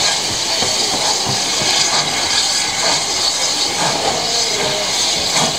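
A standing steam locomotive venting steam with a loud, steady hiss.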